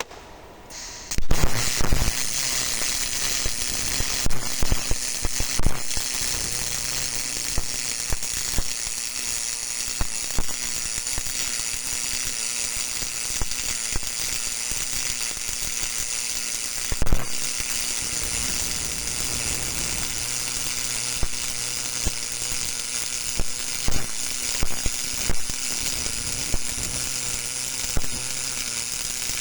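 MIG (GMAW) welding arc: it strikes about a second in and then runs as a steady crackling hiss, with scattered sharp pops of spatter.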